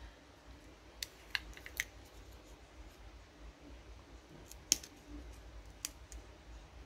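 Screw lid of a small cosmetic jar being twisted open by hand: a few light clicks about a second in, then a sharper click near the five-second mark and one more a second later.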